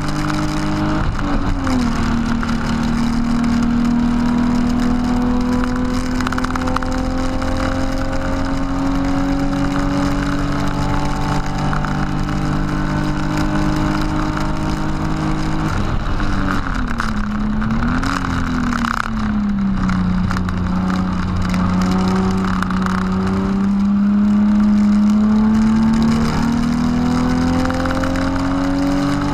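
BMW E36 328i straight-six heard from inside the cabin at full throttle. After a quick upshift about a second in, the pitch climbs slowly through one long gear. About halfway the engine note drops as the car brakes, with two quick rises and falls as it shifts down. From a low note it then climbs again as the car accelerates out of the corner.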